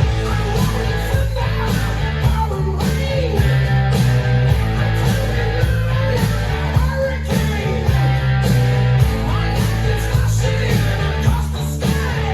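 Rock music with guitar, a strong bass line, a steady beat and some singing.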